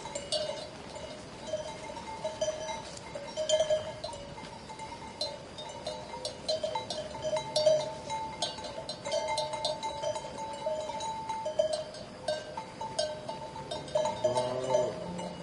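Bells on a grazing flock of sheep clanking and ringing irregularly. A sheep bleats once near the end.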